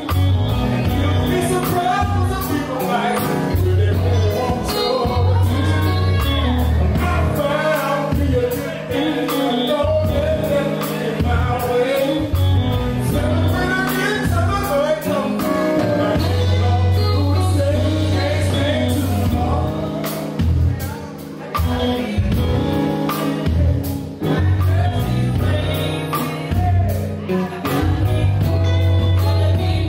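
Live band music: a man singing lead into a microphone over a steady low bass line, drums and guitar.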